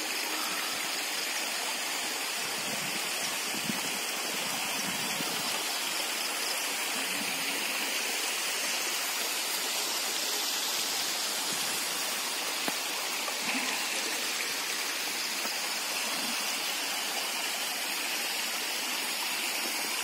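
Waterfall and stream water rushing steadily over rocks.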